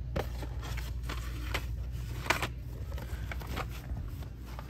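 A few light knocks and scrapes from handling cardboard boxes of markers, over a steady low hum.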